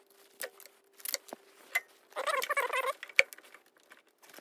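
Small metal clicks and a brief scraping rattle, with one sharp click about three seconds in: screws being worked out of an electrical receptacle to fit its cover plate.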